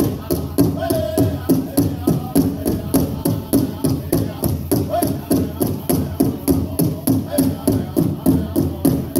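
Powwow drum group singing a jingle dress dance song over a large drum struck in a steady beat, about three beats a second.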